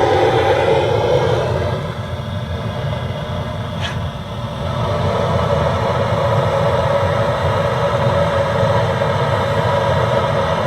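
Handheld gas burner running with a steady rushing hiss, its flame directed into the brick stove to light it and warm the cold chimney flue so the draught will start. It eases off slightly for a couple of seconds, with a faint click about four seconds in.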